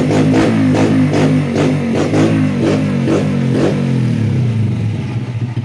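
Honda TMX 125 Alpha's single-cylinder engine barking through a Leo Vince aftermarket exhaust, blipped on the throttle about three times a second. About two-thirds in, the revs fall back toward idle.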